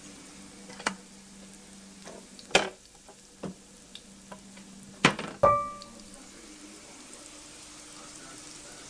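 Onions and ginger-garlic paste sizzling in hot oil in a metal pot while being stirred, with a metal slotted ladle knocking against the pot five times. The loudest knocks come about five seconds in, the last one leaving the pot ringing briefly.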